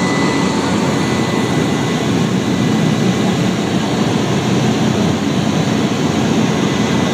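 Steady, loud drone of a small high-wing propeller plane's engine and propeller, with rushing air, heard inside the cabin as the plane climbs after takeoff.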